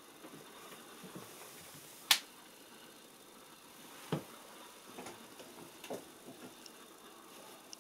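Quiet indoor room tone broken by a few scattered clicks and soft knocks; the loudest is a single sharp click about two seconds in, followed by a duller knock about two seconds later and a few fainter ticks.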